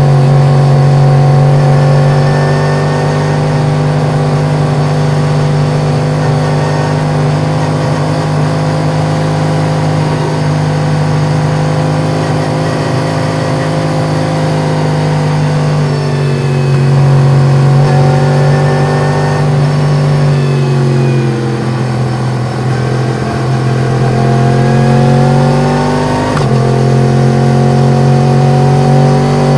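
Yamaha MT-10's crossplane inline-four engine with an Akrapovic exhaust, ridden at steady revs. The revs ease off about halfway through, drop lower for a few seconds, then climb again near the end.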